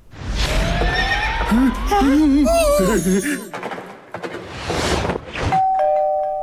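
Cartoon horse whinnying: a wavering, shaky neigh over a rushing whoosh, after a rising whistle-like glide. Near the end a steady two-note tone comes in and holds.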